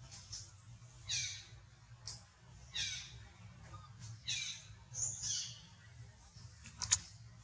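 Baby macaque crying: about four high-pitched squealing calls, each falling in pitch, with a few sharp clicks near the end.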